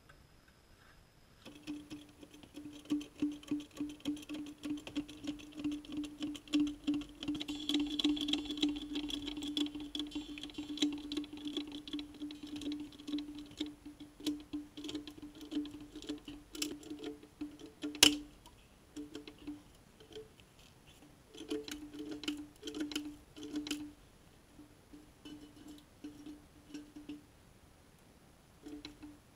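Hydraulic trolley jack being pumped by its handle as it lifts a car's front end: a creaky squeak with each stroke, quick and even at first, then in irregular short runs, with one sharp click past the middle.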